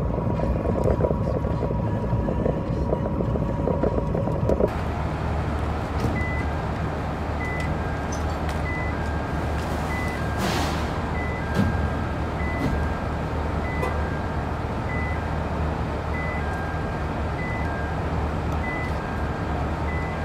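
Road rumble inside a truck cab at highway speed. After about four and a half seconds it gives way to a forklift's motion alarm beeping steadily and evenly over a low engine hum, with a short hiss about ten seconds in.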